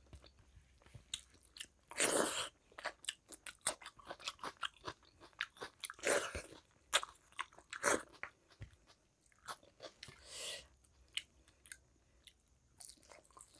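Close-miked mouth sounds of a person eating rice and curry by hand: chewing and lip smacks as quick clicks, with several longer, louder noises between them.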